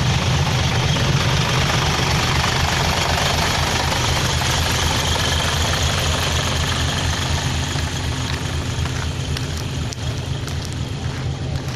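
A loaded dump truck's diesel engine running low and steady as the truck pulls away down a dirt road. The sound fades somewhat in the last few seconds, and a few short clicks come near the end.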